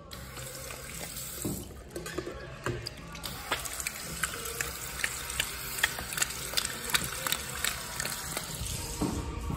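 Water running from a restroom tap into a sink and splashing over hands being washed, with many irregular small splashes.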